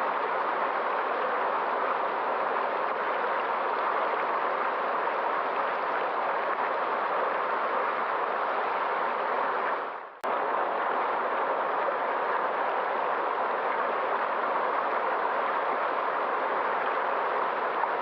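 Steady rushing of flowing river water. The sound dips away briefly about ten seconds in and comes straight back.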